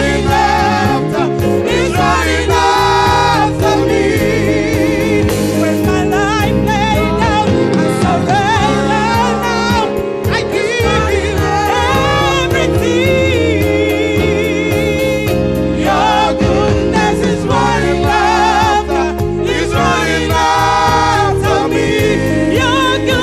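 Gospel-style music with singing voices, the sung notes wavering with vibrato over a steady low accompaniment.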